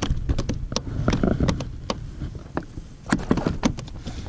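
Irregular knocks and slaps of a freshly landed barracouta thrashing against the plastic kayak hull.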